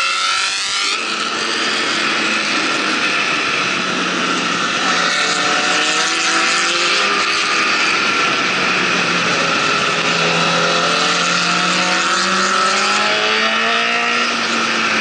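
Motorcycle engine running steadily at highway cruising speed, under heavy wind noise on the microphone. In the first second another motorcycle passes close alongside, its pitch falling.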